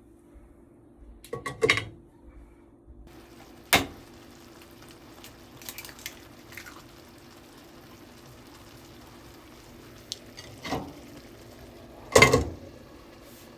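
Dishes and utensils clattering against each other a few times, with a steady low hum underneath.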